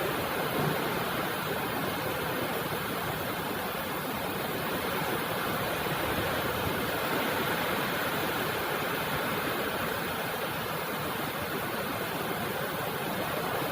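Steady rain falling, an even, unbroken hiss of water with no let-up.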